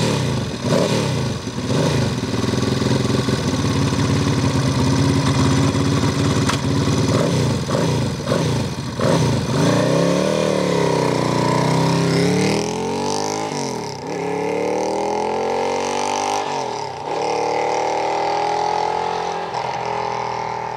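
Classic motorcycle engine running at a standstill and blipped a few times, then pulling away and accelerating up through several gears, the pitch climbing and dropping at each change as it rides off and fades.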